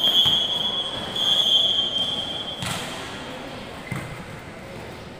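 Referee's whistle blown in one long, steady, high blast of about two and a half seconds, with a short dip about a second in, followed by a single sharp smack.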